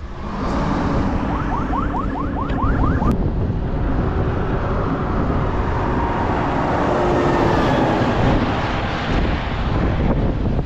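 Wind buffeting the microphone on a moving bicycle, mixed with the steady rumble and hum of vehicle engines in slow traffic. About two seconds in there is a quick run of about eight short rising chirps.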